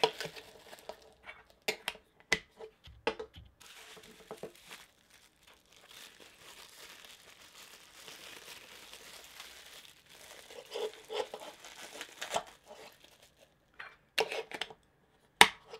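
Plastic bubble wrap crinkling and rustling as it is unwrapped by hand, with a few sharp crackles scattered through.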